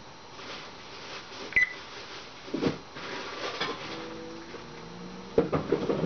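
A Congo African grey parrot clambering on a metal kitchen faucet, making a series of knocks and taps, with a cluster of louder knocks near the end. A short high beep comes about a second and a half in.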